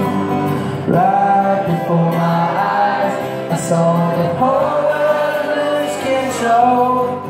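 Live solo acoustic guitar strummed under sung vocals, with long held notes on the song's chorus.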